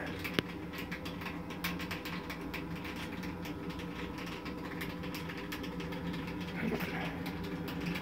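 Steady hum of a wood pellet boiler's small 12-volt forced-draft muffin fan running, made of several steady tones, with scattered light crackling throughout. There is one sharper click about half a second in.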